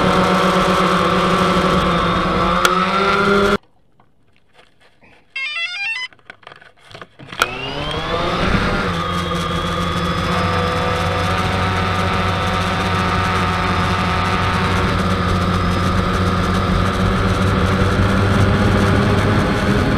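Drone motors and propellers whining steadily in flight. About three seconds in the pitch rises and the sound cuts off, leaving a few seconds of near quiet with a quick run of electronic beeps. Then the motors spin up with a rising whine and settle into a steady flying whine.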